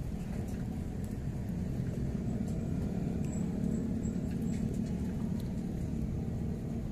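Steady low rumble with a few faint, light ticks over it.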